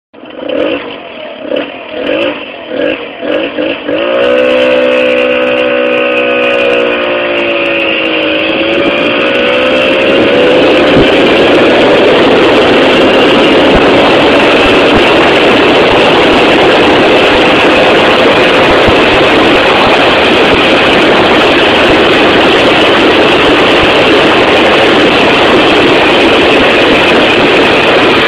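Jawa Babetta 207 moped's 50 cc two-stroke single-cylinder engine under way: it runs in uneven pulses for the first few seconds, then settles into a steady note that dips and climbs again around eight seconds in. From about ten seconds in, a loud even wind rush on the microphone covers it as the moped holds speed.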